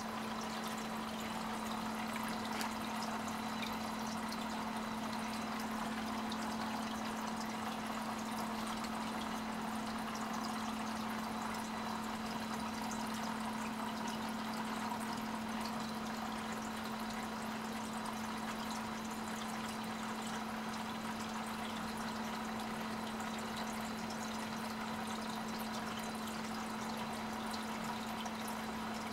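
Aquarium filter running: a steady pouring trickle of water into the tank with a low, even hum under it.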